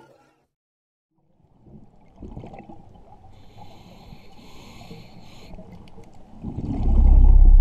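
Soundtrack sound design: a low, watery rumble fades in, with a brief hiss on top, then swells into a loud, deep bass drone near the end.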